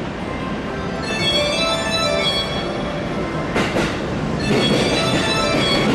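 Freight train's wheels squealing in several thin high tones, then the clatter of wheels over rail joints starts about three and a half seconds in and carries on, with repeated clacks.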